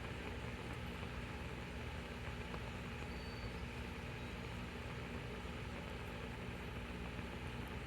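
Steady hiss and rumble of an alcohol stove burning under a titanium pot of water close to the boil, with a steady low hum throughout.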